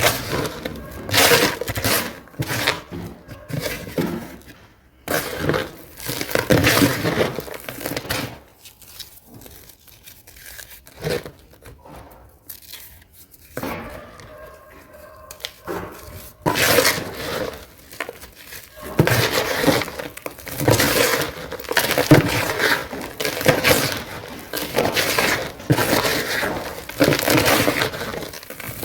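Dry, dusty cement crumbling and crushing, a run of crunchy, gritty breaks that comes in bursts. A quieter stretch falls in the middle, and the crunching is dense again near the end.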